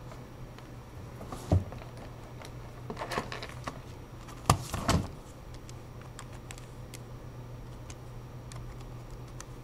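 Steady low hum with a few scattered clicks and knocks. The sharpest knocks come about a second and a half in and about four and a half seconds in.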